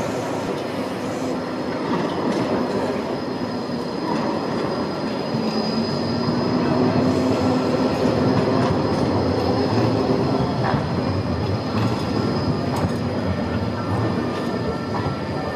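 Schindler-built green city tram running slowly along street track and drawing toward a stop. The wheels and running gear rumble, over a low motor hum and a thin, high, steady squeal. The sound grows louder toward the middle and then eases as the tram slows.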